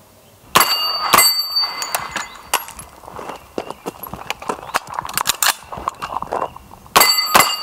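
Shots from a CMMG Guard .45 ACP carbine striking steel plate targets, which ring with a metallic tone after the hits. The loudest hits come about a second in and again near the end, with a run of lighter clacks between.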